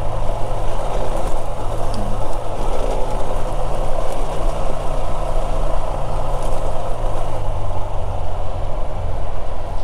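Husqvarna 701's single-cylinder engine running steadily at cruising speed, under a loud, steady rush of wind and tyre noise on a gravel road.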